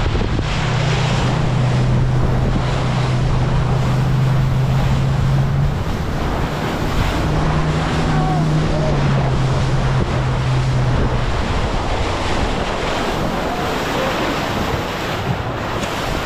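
A boat's motor hums under heavy wind buffeting and the rush of water and waves. The motor's pitch shifts about six seconds in, and the hum fades out around eleven seconds in, leaving wind and waves.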